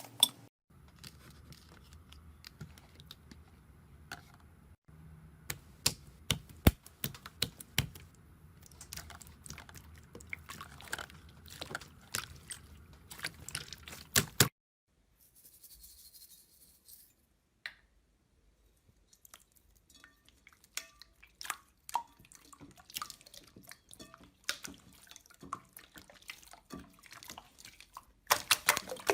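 Slime being squeezed and poked by hand: a run of small sticky clicks, pops and squelches, quiet overall, changing character as one clip cuts to the next about halfway through.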